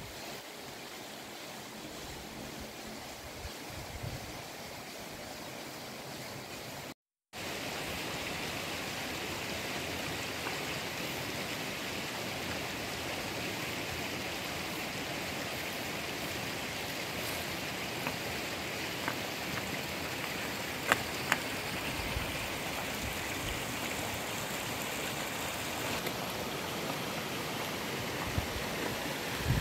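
Shallow river water running over rocks, a steady rush. The sound cuts out for a moment about seven seconds in and is louder after it, with a few sharp clicks about two-thirds of the way through.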